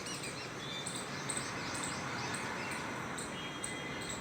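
Small birds chirping, short high calls repeated two or three times a second, over steady outdoor background noise.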